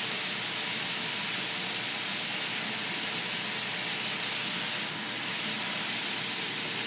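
Heat gun blowing with a steady hiss.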